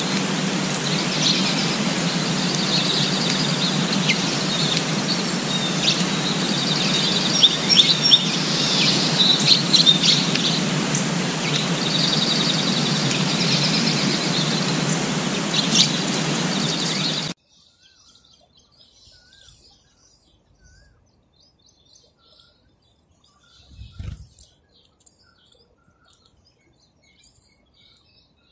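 Small birds chirping and trilling over a steady outdoor background noise. About two-thirds of the way through, the sound cuts off abruptly to near quiet, leaving a few faint chirps and one soft thump.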